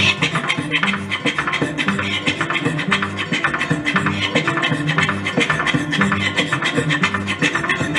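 Live band music with busy, rapid percussion over a repeating bass line and guitar.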